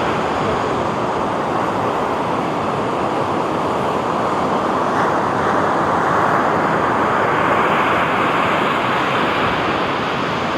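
Sea waves breaking on a beach: a steady rush of surf that swells a little in the middle.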